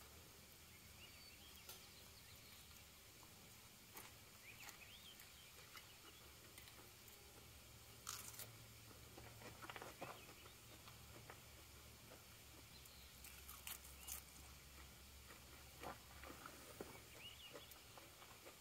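Near silence, broken by scattered faint crunches and chewing noises of someone eating a sausage fajita.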